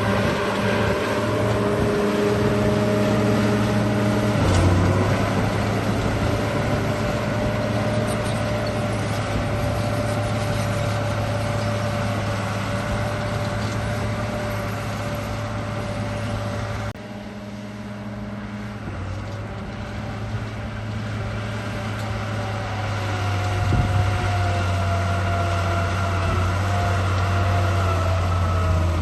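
Radio-controlled bulldozer running with a steady motor hum. The hum drops in level abruptly a little over halfway through, then builds back up.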